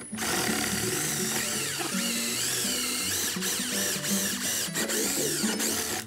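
Cordless drill with a twist bit boring through a metal electrical box, a loud grinding whine that wavers up and down in pitch. It cuts in suddenly and stops at the end, over acoustic guitar music.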